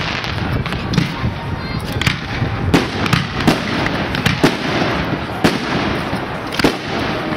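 Aerial firework shells bursting one after another, with sharp bangs about once a second over a steady noisy background.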